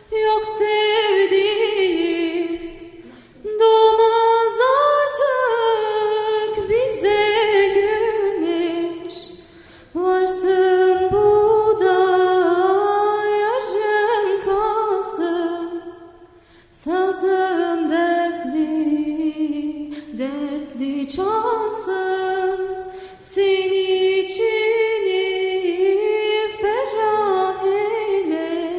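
A woman singing a Turkish folk song alone without instruments, in long ornamented phrases of a few seconds each, with short breaks between them.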